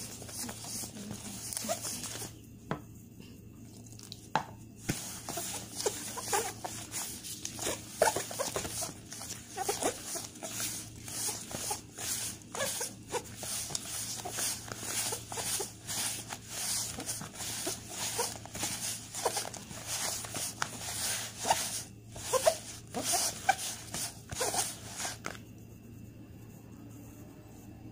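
Stiff odading dough being stirred and squashed with a wooden spoon in a plastic bowl: a quick, uneven run of scrapes, squelches and knocks against the bowl. It pauses briefly about three seconds in and stops shortly before the end.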